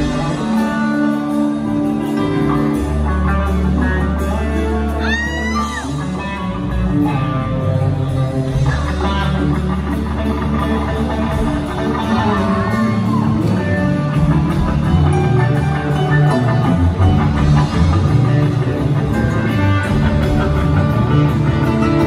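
Southern rock band playing live, electric guitars over a full drum kit, heard loud from the audience.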